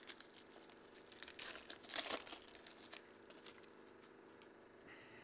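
Foil wrapper of a baseball card pack crinkling and tearing as it is opened by hand, in irregular rustles that are loudest about two seconds in and then die down to faint handling.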